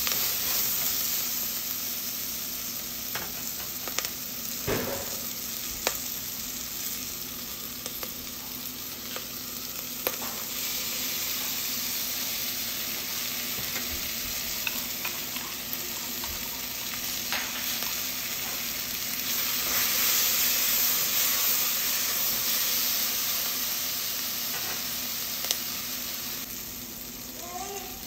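Bell pepper pieces sizzling as they fry in oil in a nonstick pot, stirred with a silicone spatula, with a few sharp clicks as the spatula meets the pot. The sizzle grows louder for a few seconds a little past the middle.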